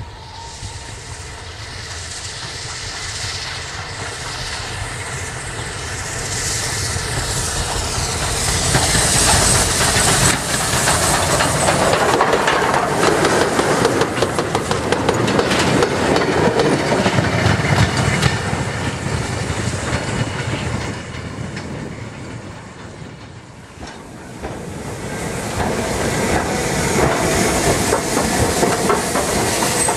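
A steam-hauled freight train approaching and passing close by, its wheels clattering over the rail joints, growing louder over the first ten seconds and staying loud until near the end. After a short dip, a steam locomotive standing at a station platform gives a steady hiss.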